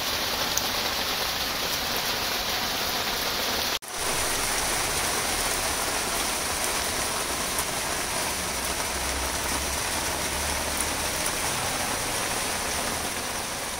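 Steady rain falling on wet concrete and puddles. The sound cuts out for an instant about four seconds in, then carries on unchanged.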